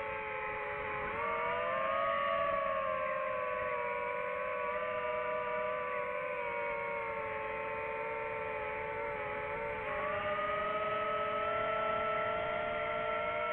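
DJI FPV drone's motors and propellers whining, several close pitches gliding up and down together as the throttle changes, with a step up about ten seconds in.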